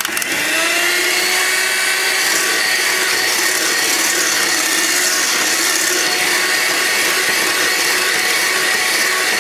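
Handheld electric mixer beating egg whites in a stainless steel bowl. It starts suddenly, its whine rises briefly as the motor spins up, and then it runs steadily at speed.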